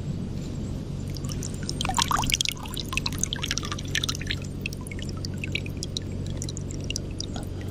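Water sloshing and splashing around a camera held in the water among seagrass, with a burst of louder splashy clicks about two seconds in and scattered crackling clicks after, over a steady low hum.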